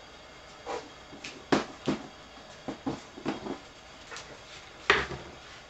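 Scattered light knocks and clicks of kitchen handling, about seven in all, as a plastic rice container and other kitchen items are picked up, moved and set down. The loudest knocks come about one and a half seconds in and near the end.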